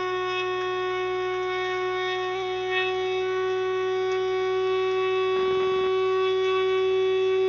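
Electric blade herb and spice grinder's motor running at full speed, a steady high whine as the blades spin through dried herbs.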